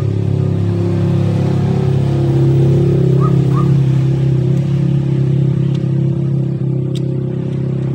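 Engine idling with a steady low hum that grows a little louder a couple of seconds in and then holds.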